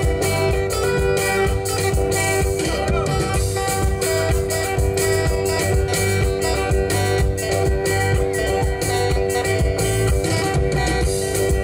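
Live band playing: electric guitars over bass and a drum kit, with a steady beat.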